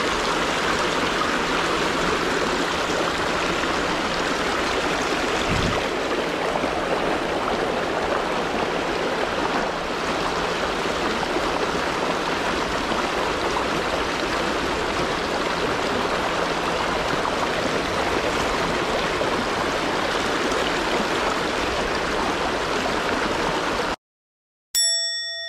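Steady rush of a shallow river riffle running over stones. It cuts off suddenly near the end, and after a brief silence a single bright chime rings out and fades.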